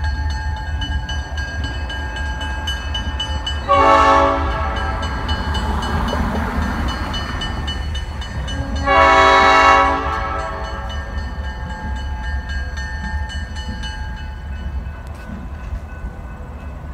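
A locomotive's old cast Nathan P5 five-chime air horn sounds two blasts, a short one about four seconds in and a longer one about nine seconds in. Under them is a steady low locomotive rumble that fades as the engine moves away.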